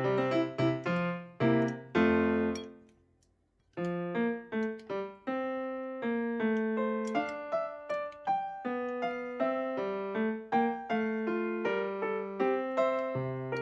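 Background piano music. The notes die away about two and a half seconds in, leaving a second of near silence, and then the piano starts again and plays on.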